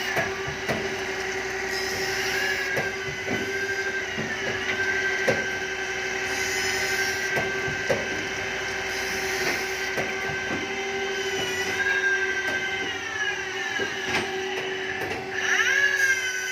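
CNC saw-blade sharpening machine grinding a circular saw blade for cutting aluminium. It gives a steady hum and higher whining tones that slide down and then back up several times, with sharp clicks every second or so.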